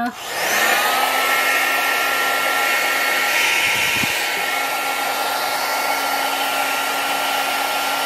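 LURA 1200 W mini travel hair dryer, a small DC motor driving a turbofan, switched on at its first setting: it spins up within the first second, then blows steadily with a loud hiss of air over a steady motor whine.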